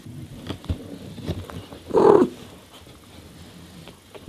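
Ginger mother cat gives one short, loud call about two seconds in, while her newborn kittens shuffle softly against her as they nurse.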